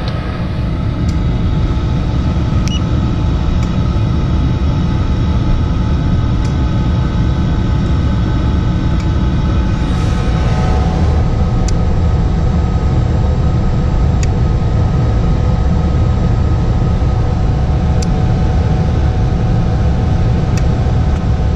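Furnace fan motor running steadily: a low rumble with a faint whine, with a few light clicks now and then.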